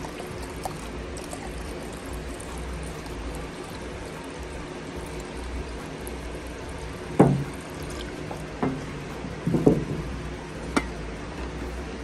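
Urethane reducer poured into a plastic mixing cup of silver base coat. A few sharp knocks come between about seven and eleven seconds in, the loudest near seven seconds.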